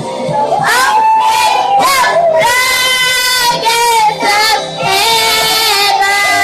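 A high solo voice singing a slow worship melody with long, sliding, wavering notes, over soft instrumental backing.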